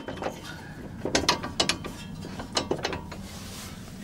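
Short bursts of metal-on-metal clicking and clunking, about five in four seconds, as a 2008 Hyundai Sonata's front suspension parts are wiggled to line up a bolt.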